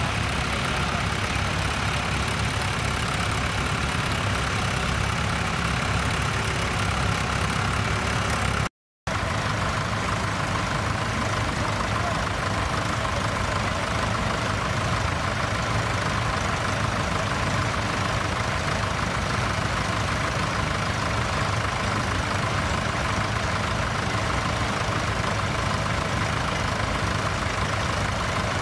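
Tractor engine running steadily, with a low, even hum. The sound cuts out completely for a split second about nine seconds in.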